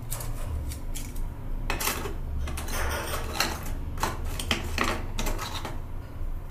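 Handling noise from unpacking: a paper band rustling as it slides off a coiled charging cable, then fingers brushing and tapping the cardboard packaging, in several short, irregular bursts.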